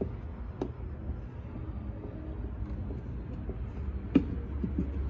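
A few short, sharp clicks of plastic trim clips and hand tools being worked on a car's cowl panel, the loudest about four seconds in, over a steady low rumble.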